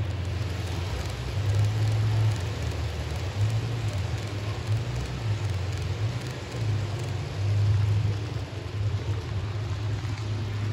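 H0-scale model trains running on a large exhibition layout: a steady rolling rumble with a hiss above it, swelling louder a few times.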